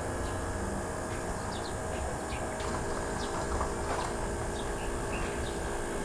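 Outdoor ambience: small birds give short, scattered high chirps over a steady low rumble.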